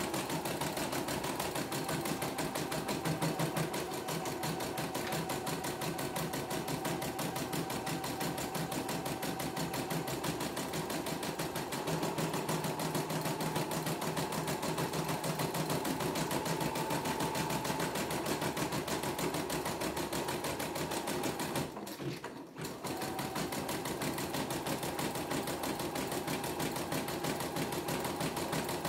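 CNY computerized embroidery machine stitching a test design, its needle running in a fast, even stream of strokes over a steady motor tone. It stops for under a second about three-quarters of the way through, then carries on.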